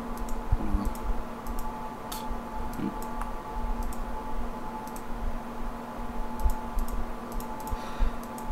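Scattered clicks of a computer mouse and keyboard, often in quick pairs, over a steady hum.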